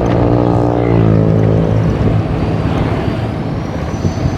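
A motor engine running, its hum dropping slightly in pitch and fading over the first two seconds, over steady outdoor rumble. A faint high whine rises over the second half.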